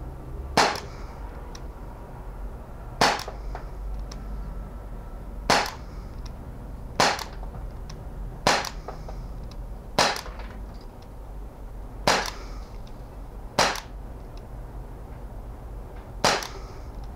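Umarex Walther P38 CO2 full-metal blowback BB pistol firing 4.5 mm steel BBs: nine sharp single shots, spaced about one and a half to two and a half seconds apart.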